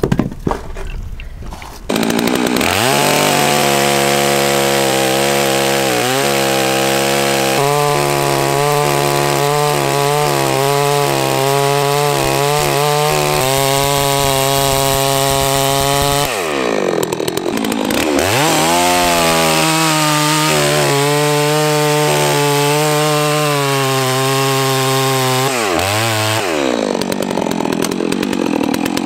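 Holzfforma G660, a large two-stroke clone of the Stihl 660 chainsaw, cutting through a log. It revs up about two seconds in and is held near full throttle, its pitch wavering under load. About two-thirds of the way through it drops off throttle and revs back up, then eases off again near the end. A few knocks come before the saw revs up.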